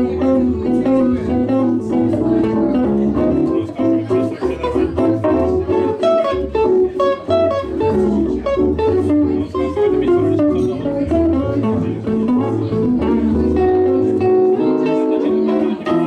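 Live trio music: an instrumental passage with guitar and keyboard playing busy runs of notes over a moving bass line.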